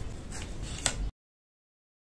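Knife cutting down through a toasted, egg-dipped bread sandwich on a plate: scratchy crunching of the toasted crust, with the sharpest crunch a little under a second in. The sound stops abruptly at about a second in.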